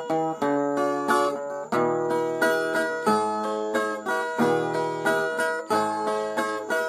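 Brazilian viola (ten-string folk guitar) playing an instrumental interlude between sung verses: picked melody notes over chords, each note starting sharply and ringing on.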